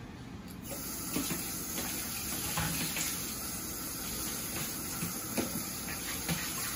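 Water running from a kitchen tap, turned on about half a second in: a steady rushing hiss, with a few light knocks.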